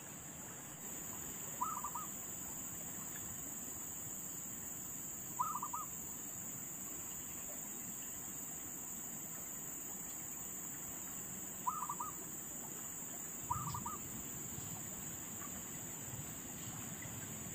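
Insects droning steadily in a high continuous band, with a bird giving a short, quick call of a few notes four times.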